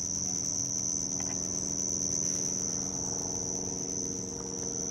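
Steady chorus of crickets, a continuous high-pitched trill that holds level, with a faint low steady hum underneath.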